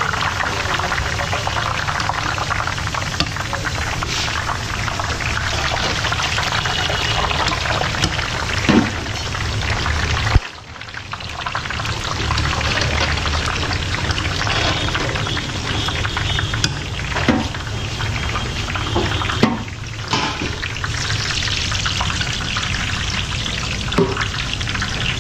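Tiny gram-flour boondi drops for motichoor laddu sizzling in hot oil in a wide iron kadai, a steady crackling hiss. A few sharp metal clinks from the skimming ladle.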